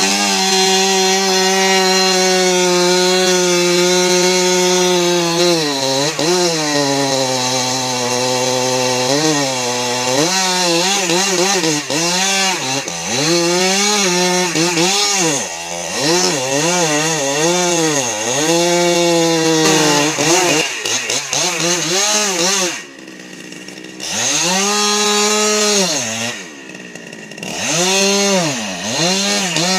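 Two-stroke chainsaw at high revs, its engine pitch sagging and recovering again and again as it bites into wood. The throttle is eased off twice near the end, and the saw drops briefly to a lower, quieter note before revving up again.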